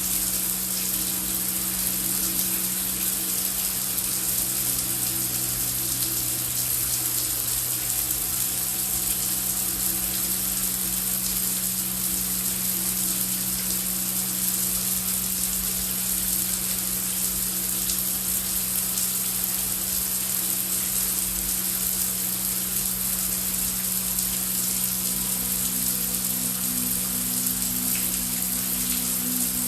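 Heavy rain falling steadily, a dense even hiss, with a low drone of a few steady tones underneath.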